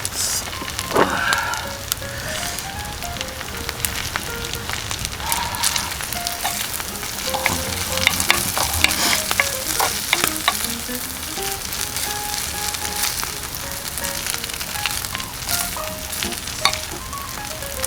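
Beef and rice sizzling on a hot iron griddle, with repeated clicks and scrapes of stirring.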